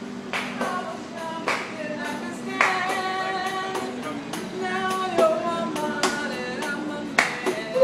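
Music with held melodic notes and sharp percussive hits, with no words sung.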